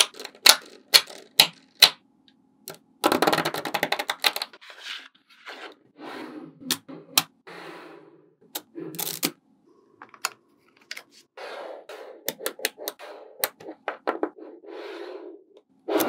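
Small magnetic balls clicking and snapping together as they are set in place, with a quick rattling run of clicks about three seconds in and softer scratchy sounds between the clicks.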